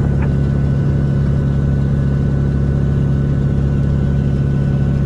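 Single-engine piston airplane's engine and propeller running at takeoff power, a loud steady drone that holds one pitch without rising or falling.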